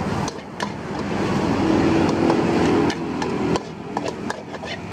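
A metal spatula knocking and scraping against a steel wok as fried rice with salted fish is stir-fried, in quick irregular clacks. A louder rumble, most likely a vehicle passing on the road, swells through the middle.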